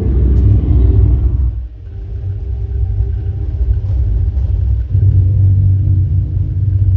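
Deep cinematic bass rumble with low sustained drone tones from a sci-fi soundtrack played as a subwoofer test. It drops off suddenly a little under two seconds in, then swells back up.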